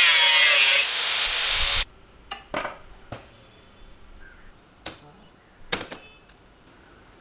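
DeWalt angle grinder with a cutting disc cutting through a flat steel bar: a loud grinding hiss with a whine, cutting off suddenly about two seconds in. Then a handful of short metallic clicks and clanks as steel parts are handled on a steel workbench.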